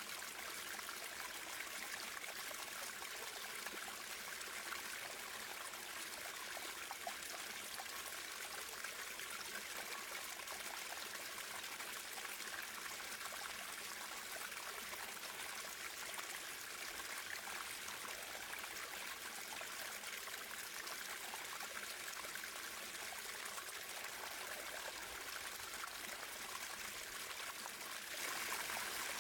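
Natural running water flowing steadily, turning a little louder near the end.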